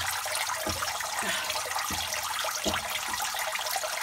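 Turtle tank's spray bar fountain splashing and trickling steadily into the water, the filter's return running, with a few soft low thumps.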